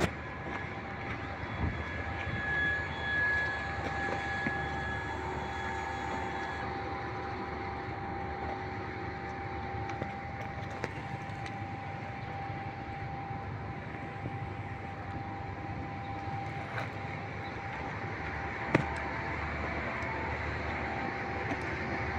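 Steady hum and rumble of motor vehicles in the background, with a few faint steady whining tones in the first part, and a single sharp knock late on.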